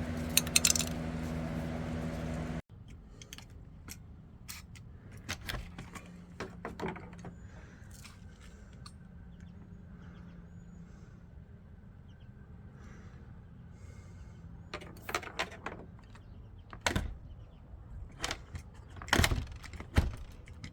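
Door hardware being worked: scattered metallic clicks and knocks of a door knob and latch, the latch catching in the rebuilt jamb, with a cluster of sharper clicks near the end. A steady hum runs for the first couple of seconds and cuts off abruptly.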